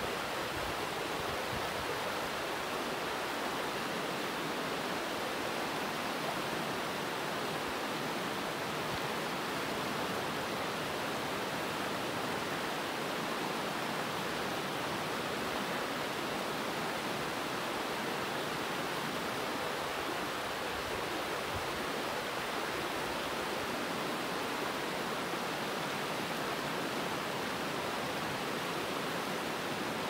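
Shallow river rapids rushing over a rocky bed: a steady, unbroken rush of water.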